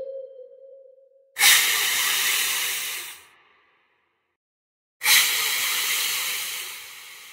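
Two loud hisses about three and a half seconds apart, each starting suddenly, holding for about a second and a half, then fading away.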